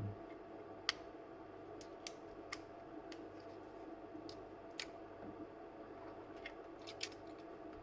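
About a dozen light, irregular clicks and taps of small laptop parts and tools being handled, such as connectors and cables being unclipped during disassembly, over a faint steady hum.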